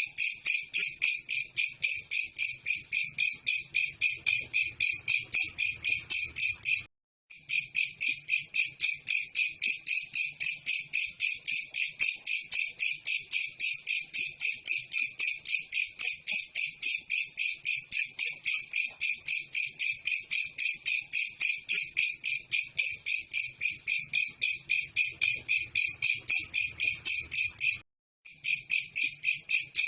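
Belalang kecek insect calling: a loud, high-pitched, unbroken train of rapid chirping pulses, about four a second. It cuts out briefly twice, about seven seconds in and near the end.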